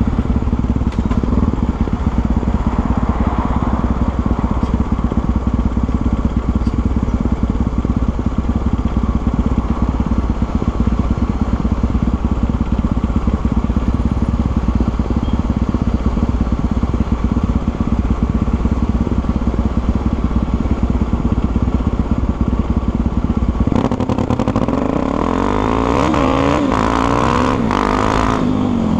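Honda XR250 Tornado's single-cylinder four-stroke engine running steadily. About five seconds before the end, its pitch starts to rise and fall as the engine speed is varied.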